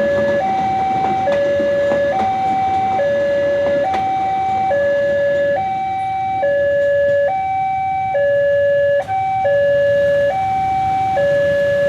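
Electronic two-tone hi-lo siren, alternating steadily between a lower and a higher tone, each held just under a second, over a steady rumble.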